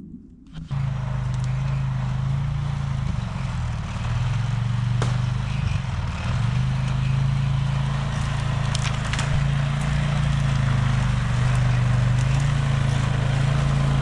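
Four-wheeler (ATV) engine running close by with a steady low drone that steps slightly up and down in pitch, and a few sharp ticks over it.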